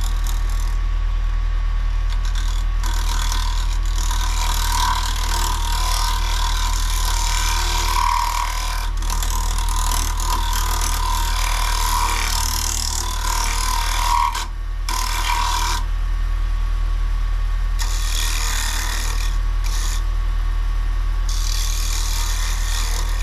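Wood lathe motor running with a steady low hum while a carbide turning tool cuts into a spinning maple bowl blank. The hissing scrape of the cut swells and eases as the tool is worked, and drops out briefly a few times when the tool lifts off the wood.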